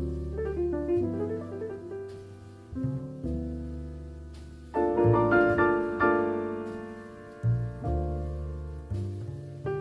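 Background piano music: slow notes and chords, each struck and left to fade, growing fuller and louder about halfway through.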